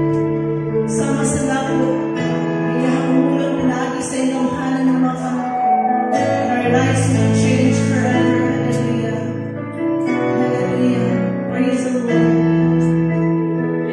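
A live church band plays a slow worship song: sustained keyboard chords over bass and guitar, with soft cymbal washes. The chords change about every two seconds.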